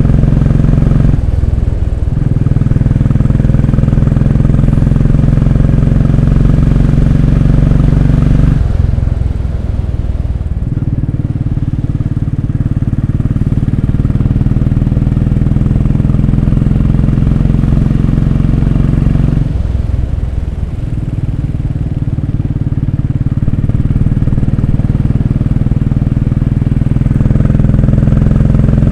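Royal Enfield Classic 500's single-cylinder engine running steadily at speed under the rider. The note eases off briefly three times, about ten seconds apart, then picks up again, as the throttle is rolled off and back on.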